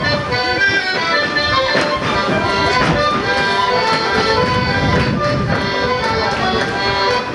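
Accordion playing a traditional folk dance tune, with a few sharp knocks mixed in.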